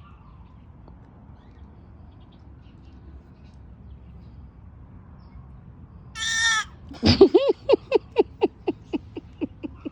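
About six seconds in, a short high-pitched squeal, then a run of rapid laughter, about five pulses a second, that starts loud and fades away.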